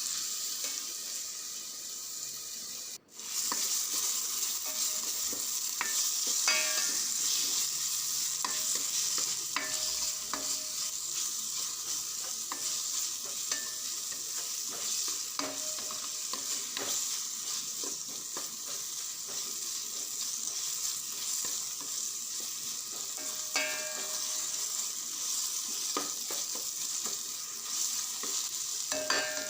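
Chopped tomatoes and onions sizzling in hot oil in a pan while being stirred, with scattered taps and scrapes of the spoon against the pan. The sound cuts out briefly about three seconds in.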